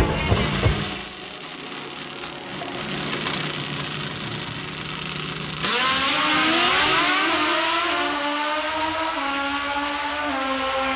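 Pro Extreme drag motorcycles: a low engine sound at first, then about halfway through a sudden loud launch. The engine pitch climbs for a couple of seconds as the bikes accelerate away down the strip, then holds and slowly eases.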